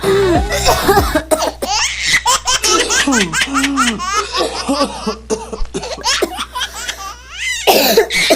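Several people laughing hard, with repeated sharp coughs breaking in among the laughter.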